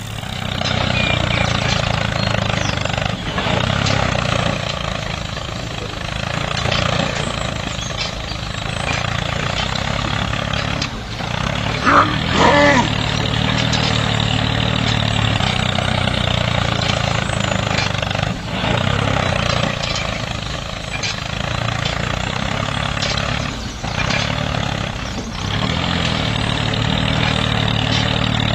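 Small motor of a handmade miniature Massey Ferguson 385 model tractor running steadily as it pulls a two-disc plough through sand, with one brief rising squeal about halfway through.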